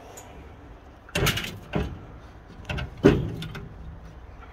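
Metal clanks and scrapes from a Smoke Hollow charcoal grill's steel parts being handled: four sharp knocks within about two seconds, the last the loudest.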